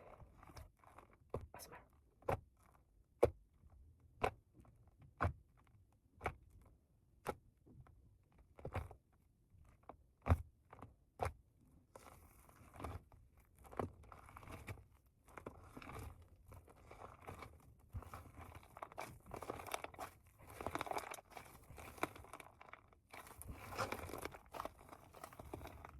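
Fluffy slime with shaving foam being worked by hand: sharp pops about once a second, then from about halfway a continuous crackling, crunchy squish as it is kneaded.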